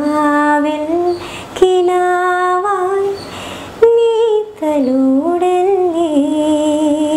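A woman singing unaccompanied, a slow Malayalam song melody in long held notes with vibrato, in a few phrases with short breaks between them.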